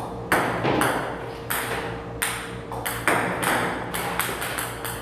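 A series of sharp pings, each ringing briefly after the hit, coming unevenly and faster near the end.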